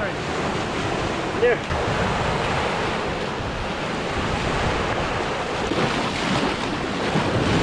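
Ocean surf washing in steadily, with wind rumbling on the microphone.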